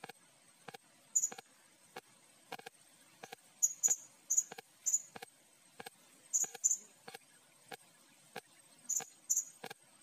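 Blue-crowned hanging parrot (serindit) giving sharp, high-pitched chirps, several in quick pairs, over a steady run of short ticks about every two-thirds of a second.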